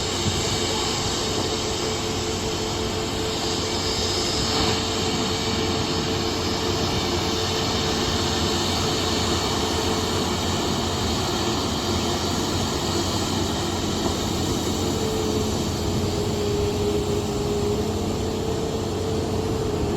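Jet airliner engines running with a steady, loud rush and a held whine that steps up in pitch slightly twice late on.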